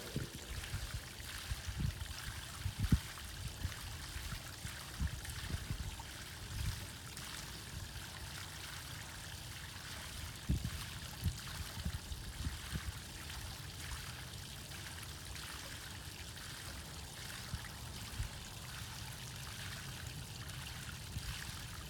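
Water rushing steadily through a pond's spillway drain pipe, flowing freely now that the clog of leaves has been flushed out. Irregular low bumps come and go, most in the first few seconds and one about ten seconds in.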